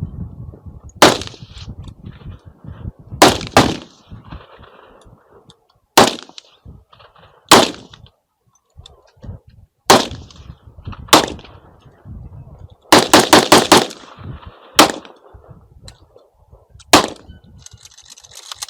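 Gunshots fired on a shooting range: single shots a second or several seconds apart, then a quick string of about five or six shots around thirteen seconds in, and a few more single shots after.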